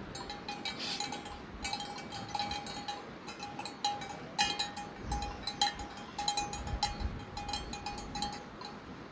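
Light metallic clinking: many quick taps in irregular runs, over a faint steady high tone.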